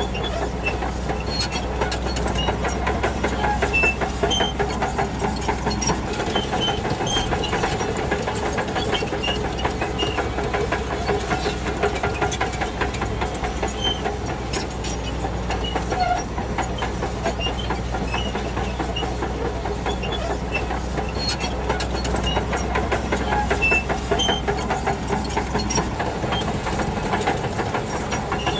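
Shantui DH17C2 crawler bulldozer working: its diesel engine running steadily under load, with the steel tracks clanking and clicking throughout.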